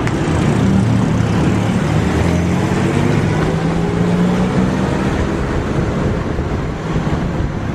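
Car engine running steadily at low speed in traffic, a continuous low engine note that wavers slightly in pitch, over road and tyre noise.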